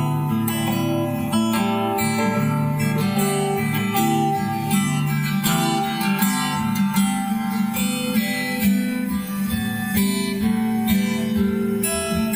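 Acoustic guitar strummed steadily in an instrumental passage of a song.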